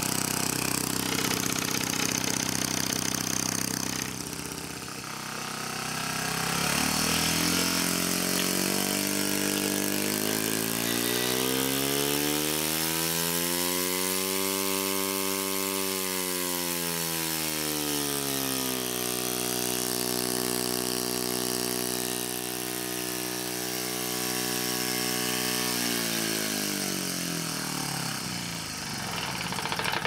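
Open scroll compressor with its shell top removed, run on a variable-speed drive: a loud mechanical hum that holds steady at first, then climbs in pitch to a peak about halfway through, falls back in steps and runs down to a stop at the very end.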